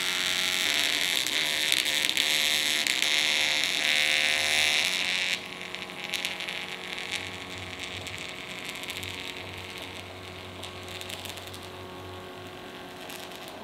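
Ozer wireless thermal stencil printer printing, its motor whirring steadily as it feeds the transfer paper through, then stopping abruptly about five seconds in as the print finishes. A faint low hum stays on afterwards.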